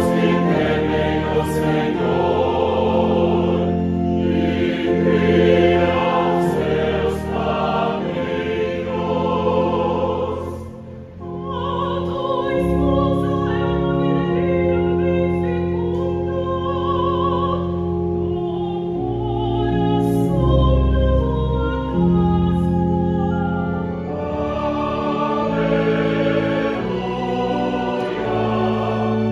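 Church choir and a female soloist singing a responsorial psalm with organ accompaniment. The music dips briefly about eleven seconds in, and near the end it moves into the Gospel Acclamation.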